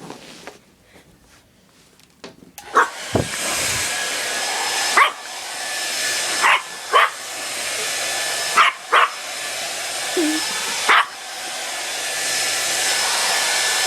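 A hair dryer switches on about two and a half seconds in and runs with a steady rushing blow that grows louder. Over it, a frightened puppy barks at the dryer about eight times in short, sharp barks.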